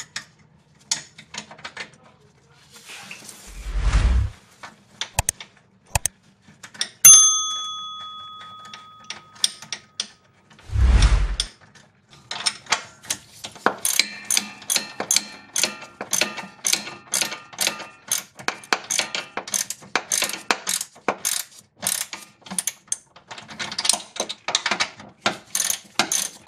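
Hand ratchet with a 14 mm socket running in the two bolts of a front stabilizer bar bushing bracket: runs of rapid pawl clicking through the second half. About a quarter of the way in comes a single loud metallic clang that rings on for a few seconds, and there are two dull thumps.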